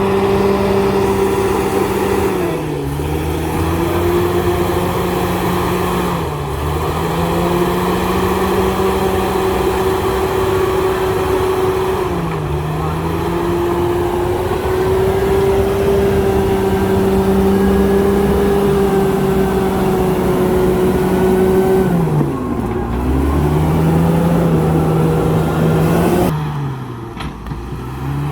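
Komatsu D68ESS bulldozer's diesel engine running at high revs. Its pitch dips briefly and recovers about five times, and it drops lower for a moment near the end.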